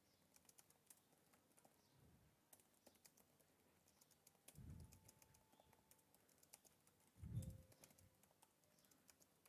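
Faint, scattered clicking of computer keyboard keys being typed, with a couple of soft low thumps in the second half.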